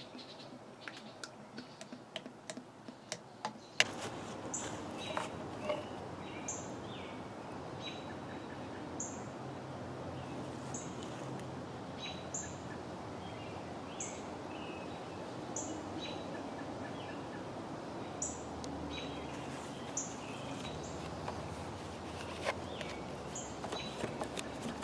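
A bird giving a short, high chirp over and over, about every second and a half, against steady outdoor background noise. In the first four seconds it is quieter, with scattered light clicks and taps, until the background noise steps up suddenly.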